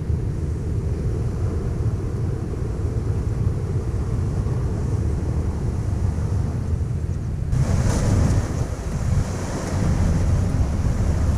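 Wind buffeting the microphone: a steady low rumble with no clear engine note. About two-thirds of the way in, a louder hiss that reaches high up joins it.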